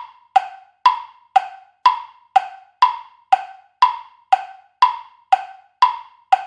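Clock-style ticking sound effect of a quiz countdown timer: hollow wood-block-like ticks, about two a second, evenly spaced.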